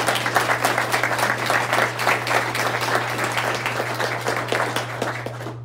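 Audience applauding: a dense patter of many hands clapping that thins out and stops near the end.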